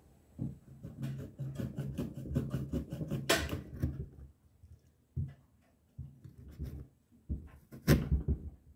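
Serrated kitchen knife sawing back and forth through the hard rind of a gem squash on a wooden chopping board: quick strokes for the first few seconds, with a louder knock about three seconds in and another near the end.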